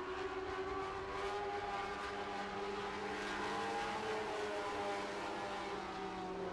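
Several motorcycle-engined Lightning Sprint cars racing around a dirt oval, their engine notes overlapping at different pitches and rising and falling as they circulate.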